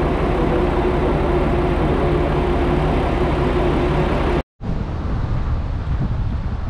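Steady hum and rumble of trains standing at a station platform, with one constant mid-pitched tone. It breaks off sharply about four and a half seconds in, and a lower outdoor rumble with wind on the microphone follows.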